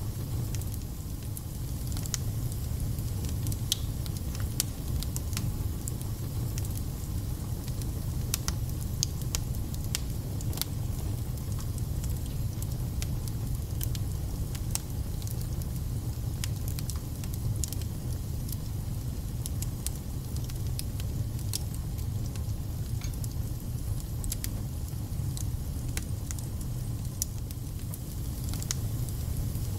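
Wood fire burning in a fireplace: a steady low rumble with frequent sharp crackles and spits.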